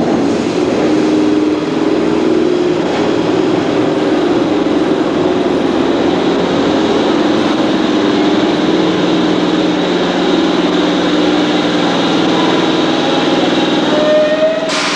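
Steady machinery hum and rumble of electric suburban trains (HÉV multiple units) standing at an underground platform, with a few held low tones. A brief rising tone sounds near the end.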